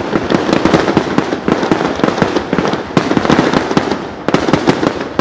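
Fireworks going off in a dense, near-continuous run of sharp bangs and crackles, many per second.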